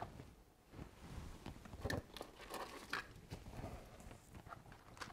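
Hands handling plastic packaging and small electronic parts: faint crinkling and rustling with a few sharp clicks and knocks, the loudest about two and three seconds in.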